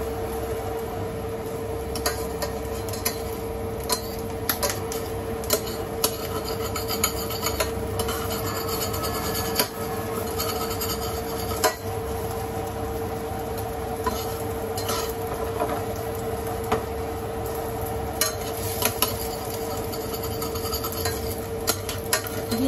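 Cooking utensils scraping and clinking against dishes or a pan, with sharp clinks coming irregularly about once a second, over a steady hum.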